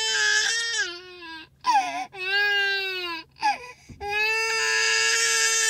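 A toddler crying: three long, drawn-out wails with short sobbing cries between them.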